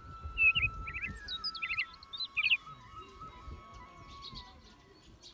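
Background music with a slow, steady melody, over small birds chirping in quick little groups through the first half. The peacock is not calling.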